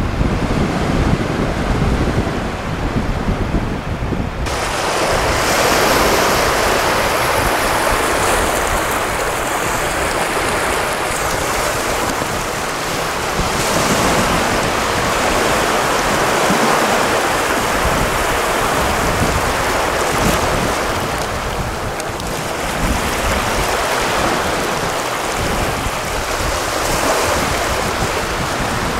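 Wind buffeting the microphone, then, after an abrupt cut about four seconds in, a steady wash of ocean surf that swells and eases slowly.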